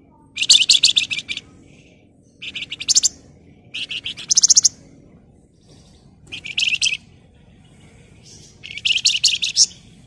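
Javan fulvetta (wergan Jawa, kept as a 'flamboyan' songbird) calling in five quick bursts of rapid, high chattering trills, each under a second long, with short pauses between them.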